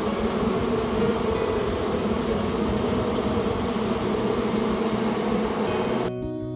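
Dense colony of wild honey bees buzzing in their nest cavity: a loud, steady hum of many wings that cuts off suddenly near the end.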